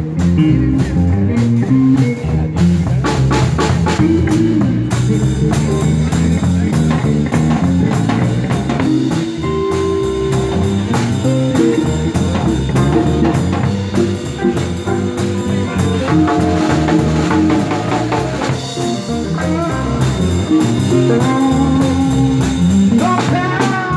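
Live blues band playing: electric guitar over bass and a drum kit, keeping a steady blues groove.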